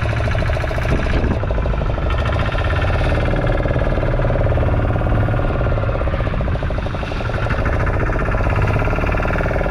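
Outboard motor of a small open fishing boat running steadily under way, with a fast, even beat.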